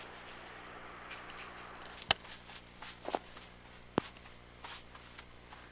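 Sharp crunches of footsteps on icy, crusted snow: three louder ones about a second apart starting about two seconds in, with fainter ones between, over a faint steady hum.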